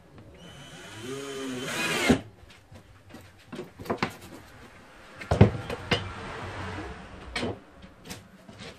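Cordless drill spinning under load into a plywood board: a whine that rises and wavers in pitch for about a second and a half, stopping sharply about two seconds in. This is followed by a few sharp knocks of wood and tools being handled on the saw table, the loudest about halfway through.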